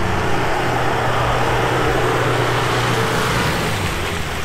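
A vehicle engine running steadily, with rushing wind noise on the microphone.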